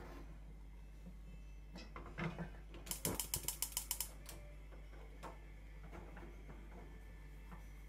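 Gas hob burner's spark igniter clicking rapidly, about nine clicks in a second, as the burner is lit. A couple of light knocks come just before.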